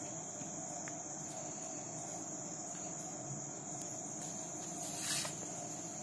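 Cricket trilling steadily at a high pitch, with a short rustling scrape of hands handling the dough about five seconds in.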